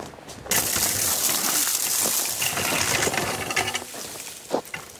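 Ice-coated branches and twigs rustling and crackling with a fine, glassy tinkle as someone pushes through them. It starts about half a second in and eases off near four seconds, followed by a single crunching step.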